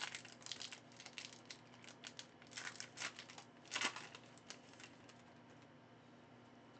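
Foil Yu-Gi-Oh booster pack wrapper crinkling and tearing open, as a quick run of crackles with the loudest about four seconds in. It dies away after about five seconds.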